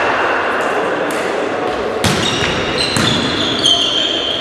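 A volleyball struck twice, about a second apart, as a serve and then a pass: sharp smacks that echo around a large sports hall. High squeaks from sneakers on the hall floor follow, over the murmur of players' voices.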